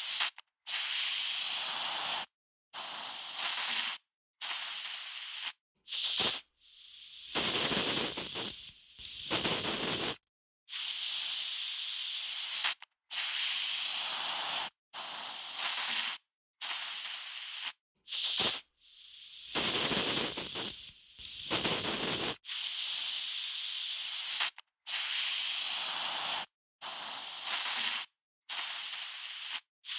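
Aerosol spray can spraying in a series of short hissing bursts, each one to two seconds long, with brief silent gaps between them. A few bursts around the middle sound fuller and reach lower.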